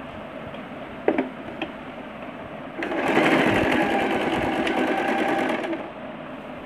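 Electric domestic sewing machine stitching a straight seam through thin cloth: it starts about three seconds in, runs fast with a rapid needle rhythm for about three seconds, then stops. A couple of light clicks come before it, over a steady background hiss.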